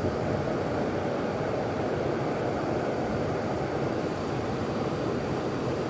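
Steady rushing of fast-flowing stream water, an even noise with no distinct events.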